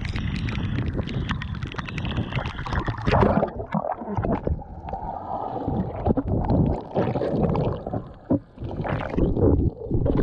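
Choppy seawater splashing and sloshing over a GoPro held at the sea surface. About three and a half seconds in, the camera goes under and the sound turns muffled, with underwater gurgling, bubbling and knocks of moving water.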